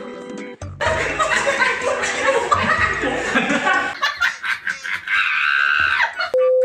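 A group of cartoon monkeys laughing loudly together, many voices cackling over one another, after a brief snatch of light keyboard music. A short steady beep comes near the end.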